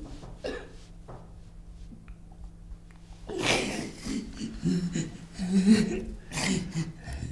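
A woman sobbing, faint at first, then breaking into loud, gasping crying about three seconds in.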